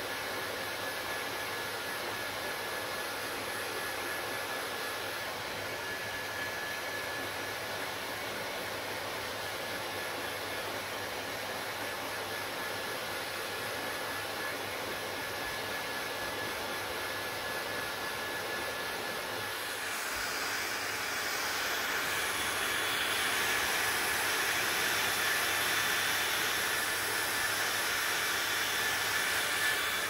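Handheld hair dryer blowing steadily while drying hair, a steady rush of air with a thin motor whine over it. About two-thirds of the way through it grows louder and brighter.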